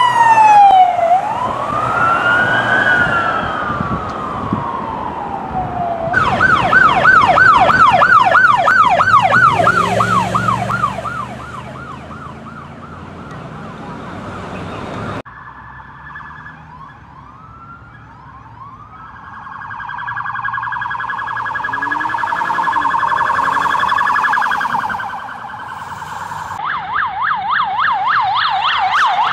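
Police car electronic sirens: a slow wail that switches to a fast yelp about six seconds in. After a cut, a fainter siren grows louder, and another fast yelp starts near the end.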